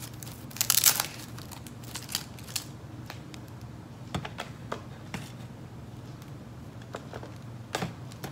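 Laptop charger's plastic power brick and cord being handled and unwound: a cluster of sharp clicks and rustles about a second in, then scattered single light clicks.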